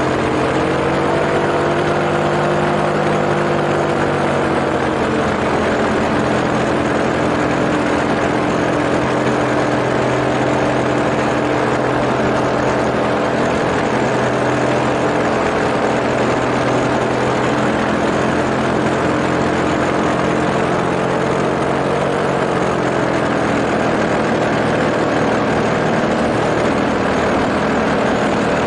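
Small propeller engine running steadily and heard close up, with a wash of air noise. Its pitch sags slightly a second or two in and shifts again a little after twenty seconds in.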